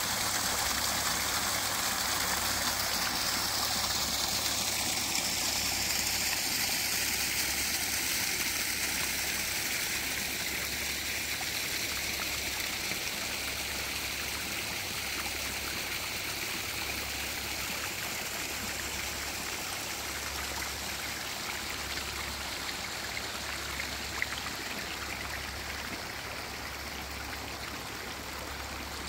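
Small waterfall splashing and trickling steadily over rocks, growing gradually fainter.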